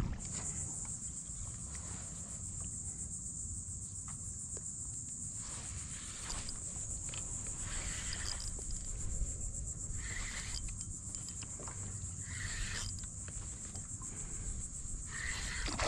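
A steady, high-pitched chorus of insects singing from the wooded shore, over a low rumble of wind and water, with a few light clicks.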